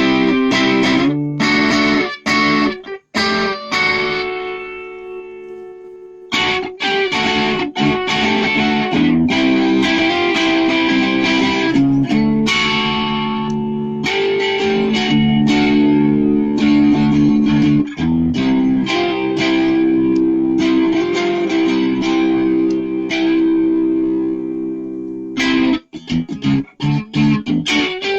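Ash-bodied electric guitar played through an amplifier: struck chords and picked notes, one chord left to ring and fade over a few seconds near the start, then sustained chordal playing, and short choppy strokes near the end.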